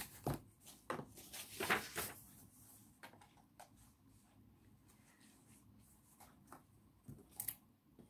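Soft rustling and a few light knocks of a hardback book being handled and its pages leafed through, loudest in the first two seconds, with scattered quieter rustles after.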